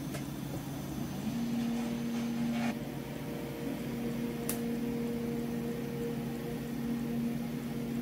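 Steady electrical hum of a running kitchen appliance, with a higher tone that comes in about a second in, drops out briefly and returns; a single sharp click about halfway through.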